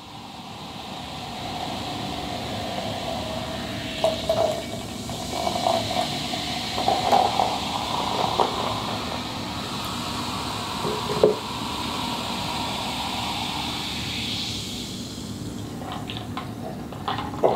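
Lemon-lime soda (Sprite) poured from a can into a plastic cup, fizzing. The pitch of the pour rises as the cup fills, and the pouring stops near the end, followed by a few short sounds as she drinks.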